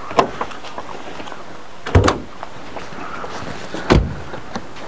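Car door and hood latch knocks as the hood of a Ford Focus is released and popped open: three separate clunks about two seconds apart, the second and third heavier and deeper.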